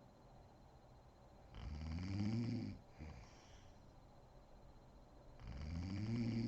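A woman snoring in deep sleep: two long snores about four seconds apart, each rising then falling in pitch and followed by a short breath.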